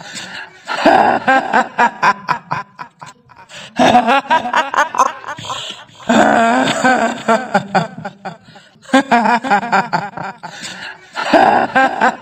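Kuntilanak ghost laughter as a horror sound effect: a woman's voice laughing 'hihihi' in about five bursts of one to two seconds each, with short gaps between them.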